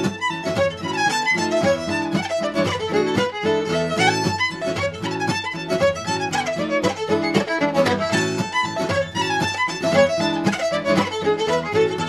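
Fiddle music: a fast tune of many short notes.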